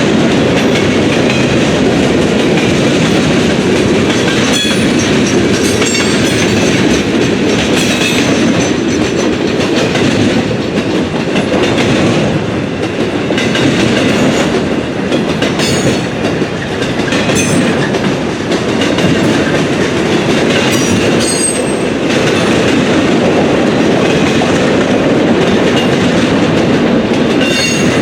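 Freight train rolling past close by, its wheels clacking over rail joints in a steady, continuous rumble, with a few brief high-pitched wheel squeaks.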